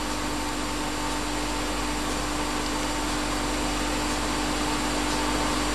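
A steady whirring hum with a hiss over it, one low tone held unchanged throughout.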